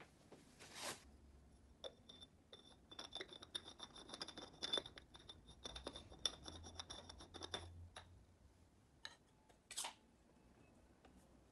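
Faint rapid clicking and scraping of metal tubes being slid and twisted against each other, the parts of a cylinder maze puzzle, with a faint metallic ringing through the busiest stretch in the middle. A brief rustle comes near the end.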